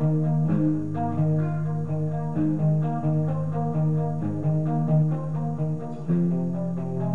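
Electric guitar, a Fender Player Telecaster with Noiseless pickups played through an amp, picking a steady arpeggiated chord pattern in drop D, with its active mid boost turned up.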